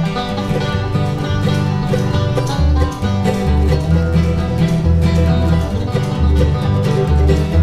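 Bluegrass music: banjo picking with guitar over a moving bass line.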